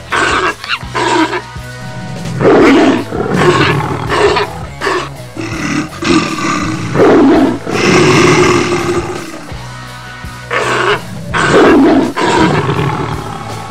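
Big cats roaring, a series of loud roars with one longer drawn-out roar near the middle, over background music.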